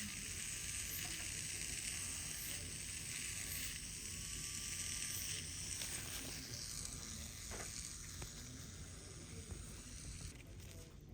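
Steady hiss from motorized FUE graft-extraction equipment, with a faint dip in pitch about once a second, cutting off near the end.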